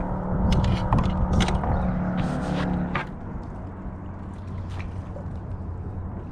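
Water splashing and scattered knocks and scrapes against a plastic kayak hull as a sheepshead thrashes on a stringer alongside, for about three seconds; then quieter, steadier water noise.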